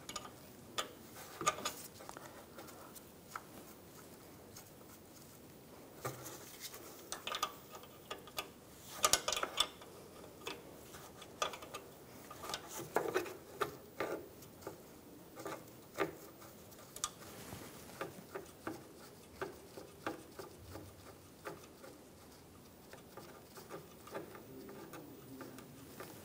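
Scattered, irregular light metallic clicks and taps of a wrench and hex key working on the nut of a refrigerant line fitting as it is loosened, with a few louder clusters of clicks.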